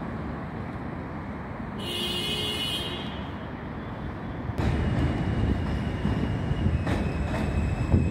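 Steady outdoor rumble of an elevated subway station with a brief high-pitched squeal about two seconds in. About halfway through the sound steps up to the louder low rumble and steady whine of an R160 subway train standing at the platform.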